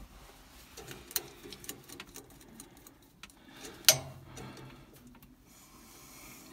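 Small clicks and taps of hands fitting wires into an immersion heater's thermostat, with one sharp click about four seconds in.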